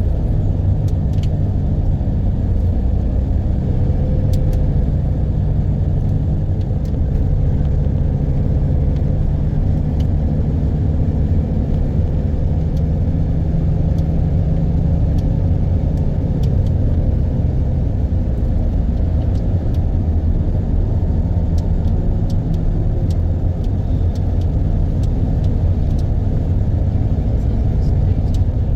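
A motor vehicle driving: a steady low engine and road rumble with no change in pace.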